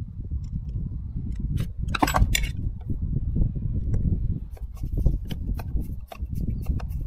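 Small metal carburettor parts and hand tools clicking and clinking against each other and the bench as they are handled, with a brief flurry of clinks about two seconds in, over a steady low rumble.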